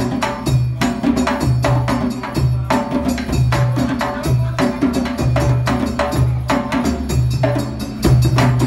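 Several djembe-style African hand drums played together in a fast, steady rhythm: quick sharp slaps over a repeating pattern of deep bass notes.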